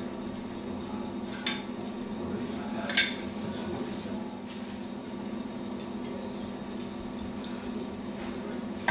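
Handling noise from a plastic pole-rig winder as fishing line is worked off and on it: two sharp little clicks about a second and a half apart, the second the louder, over a steady low hum.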